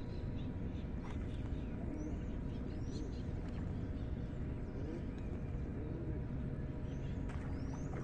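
Birds chirping in short high calls, one group about two to three seconds in and another near the end, over a steady low outdoor background noise.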